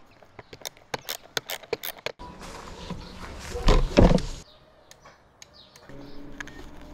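Rapid clicks and small metal taps as a plastic guard is fitted and bolted onto a brush cutter's shaft, then about two seconds of rushing noise as the trimmer cuts through grass, loudest just before the middle. A faint low hum follows near the end.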